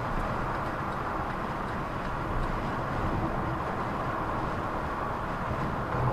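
Steady road and engine noise of a car driving, picked up by a dashcam inside the cabin.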